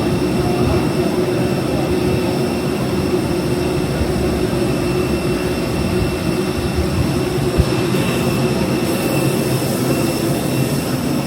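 Steady mechanical drone with a few constant high whines held over it, and a single short knock about seven and a half seconds in.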